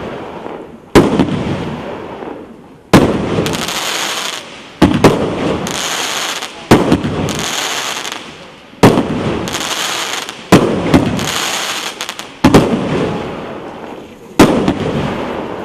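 A 19-shot, 1.25-inch "Дельфин" fireworks cake (battery) firing shot after shot, about one every two seconds. Each sharp report is followed by a noisy tail that fades over a second or so.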